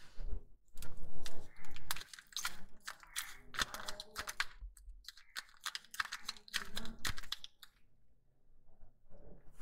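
A plastic shampoo sachet crinkling and crackling as fingers squeeze it, in quick irregular clusters of crackles that die down about three-quarters of the way through.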